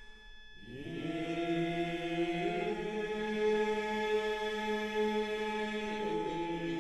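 Chanting voices holding long, steady notes. After a short dip near the start, the chant slides upward into a held pitch and later steps to new notes a couple of times.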